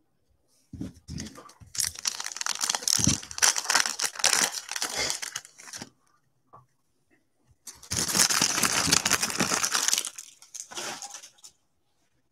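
Plastic trading-card pack wrapper crinkling and being torn open by hand, in two long rustling stretches with a few light knocks of cards on the table.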